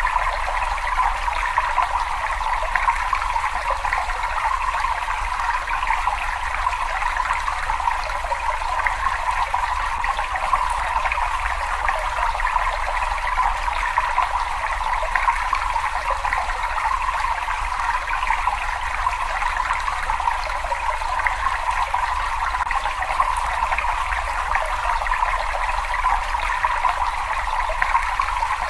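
Water running and trickling steadily in a cave, an even rushing with a low rumble underneath.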